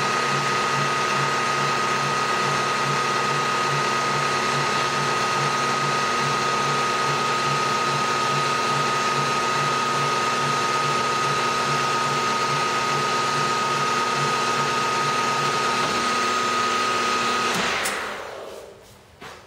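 Milling machine spindle running an indexable face mill through a facing pass across a metal block, a steady machine drone with a high whine and an even low pulsing. The block is being squared up. About a second and a half before the end the spindle is switched off and the sound dies away.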